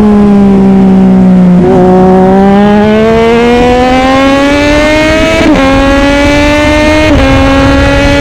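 Car engine running loud and hard. Its pitch climbs for several seconds at a time and drops abruptly three times, like an engine accelerating through gear changes.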